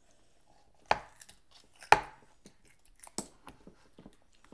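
Children biting and chewing crisp raw green vegetables close to the microphone: a few sharp crunches with smaller crackles between, the loudest about two seconds in.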